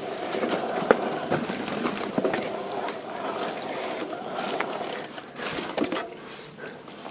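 Focus Jam2 e-bike riding over muddy, rough ground: rolling tyre noise with scattered clicks and knocks, and a faint steady hum through the first five seconds or so.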